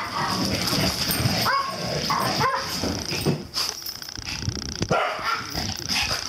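Dogs barking in play, a string of separate short barks and yaps, some rising and falling in pitch, with a white Pomeranian's higher yaps among them.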